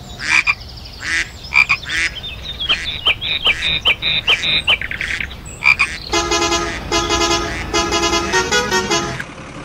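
Frogs croaking in quick repeated pulses, then about six seconds in a vehicle horn honks in four blasts, the last one stepping up and down in pitch.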